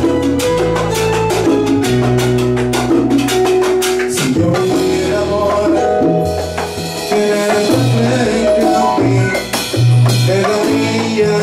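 Live band playing a Latin dance tune on a Yamaha keyboard, bass and drum kit, with a steady beat.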